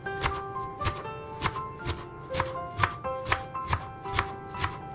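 Kitchen knife chopping leafy green stems against a wooden cutting board, about two strokes a second, over background music with a simple held-note melody.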